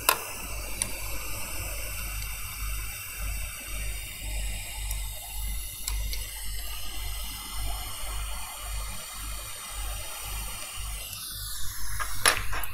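Hot air rework gun blowing a steady rushing stream of air onto a phone logic board to melt the solder between the stacked boards, with a low pulsing rumble underneath. About eleven seconds in its whine slides downward as the gun is drawn back, and a couple of sharp clicks follow.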